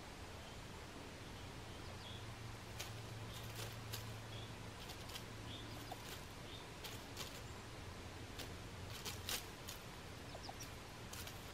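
Dry fallen leaves rustling and crackling in short, irregular clicks as a ruffed grouse pecks and shuffles through leaf litter while feeding on a mushroom, with a louder cluster of clicks about nine seconds in.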